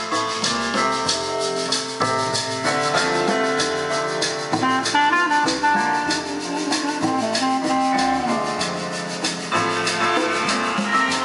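Recorded music with a steady percussion beat and pitched instruments, played through Sonus Faber Concertino bookshelf speakers driven by a Classé Twenty-Five power amplifier and heard in the room.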